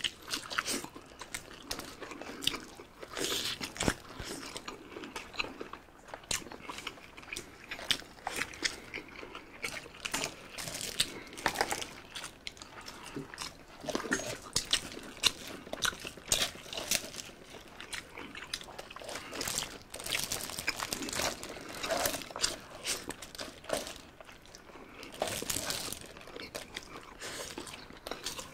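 Chewing and mouth sounds of people eating chicken and mutton biryani by hand, a steady run of short wet clicks and smacks.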